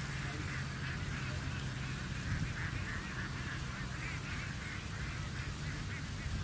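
Cuckoo nestling begging calls: a fast, unbroken run of short high-pitched notes, typical of a chick begging for food. A steady low hum runs underneath.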